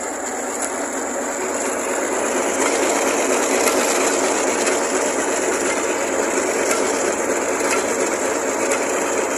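Long flat drive belt running over a Massey Ferguson tractor's belt pulley to power a tubewell pump, a steady rubbing, rasping run, with the tractor's diesel engine running at low revs underneath. It gets a little louder about two seconds in.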